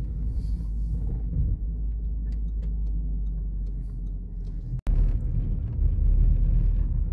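Low, steady rumble of a car driving, heard inside the cabin: engine and tyre noise on the road. It drops out briefly about two-thirds of the way through and comes back louder.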